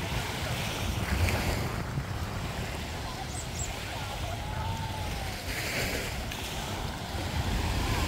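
Surf washing onto a sandy beach, with wind buffeting the microphone in a steady low rumble.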